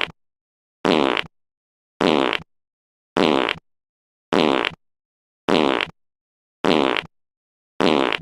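The same short fart sound effect played in a loop, about once every second, with silence between. Each fart lasts under half a second.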